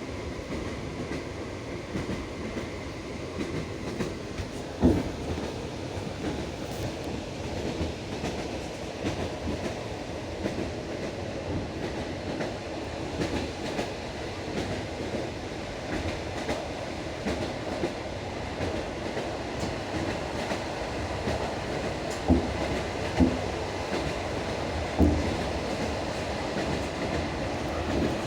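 Passenger train carriage wheels running on the rails: a steady rumble, with a few sharp knocks as the wheels strike rail joints, several of them close together near the end.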